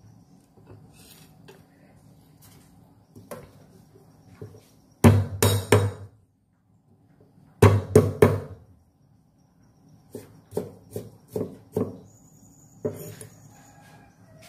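Large kitchen knife chopping onto a thick round wooden chopping block in short bursts of three or four quick, heavy strikes, then a run of lighter chops, with pauses between.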